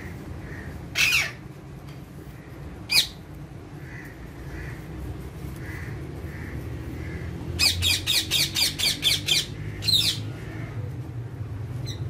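Parakeets squawking: two single harsh squawks about a second and three seconds in, then a rapid run of about nine squawks at roughly five a second, and one more straight after, over a low steady hum.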